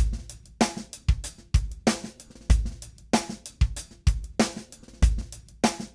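Drum kit playing a steady beat alone, with deep kick-drum thumps and sharp cymbal-bright hits, about two strong hits a second.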